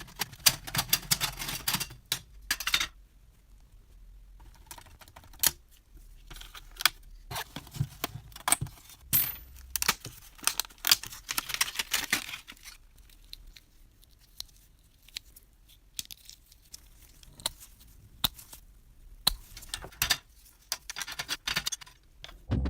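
Small metal parts of a rusty model bus being handled and worked apart: irregular clicks, light rattles and short scraping runs, busiest near the start and again about halfway through.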